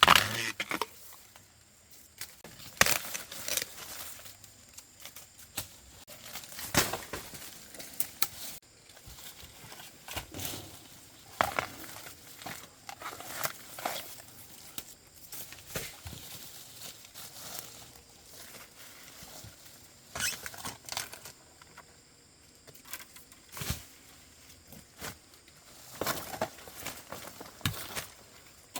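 Dry leaves and forest litter rustling and crackling, with scattered sharp snaps every second or two.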